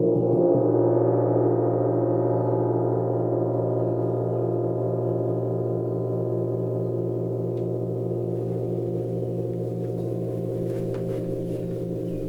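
A gong rings on after being struck just before, its many overtones sustaining with a slow pulsing and fading gradually.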